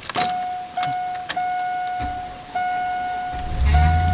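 Cold start of a red Chevy pickup's engine after two nights parked in frigid cold: a dashboard warning chime sounds a steady tone with short breaks, the starter cranks from about two seconds in, and the engine catches near the end and runs at a fast cold idle.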